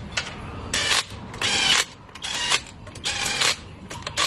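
Ratchet wrench being worked in four short rasping strokes, followed by a few lighter clicks near the end, during brake caliper and disc work.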